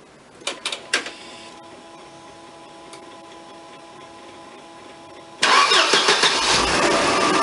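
Mercedes-Benz C230 Kompressor's supercharged 2.3-litre four-cylinder engine being started: a few clicks, then a steady faint hum for about four seconds, then the engine cranks and catches suddenly about five and a half seconds in and settles into running.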